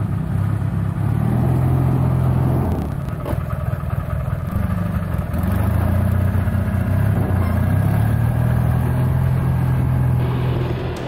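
Amphibious multi-wheeled ATV's engine running under load as it hauls a small boat up a gravel launch. It eases off between about three and five seconds in, then picks up again.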